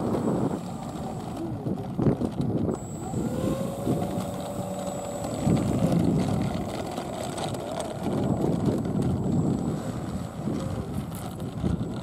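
Radio-controlled model airplane taxiing on its nose propeller, with a faint gliding motor tone. A gusty wind rumble on the microphone runs under it.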